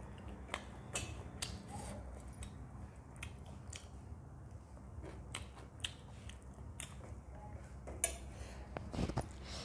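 Close-up eating sounds: irregular chewing, wet lip smacks and mouth clicks from a person eating rice and chicken curry by hand, with a low steady hum underneath.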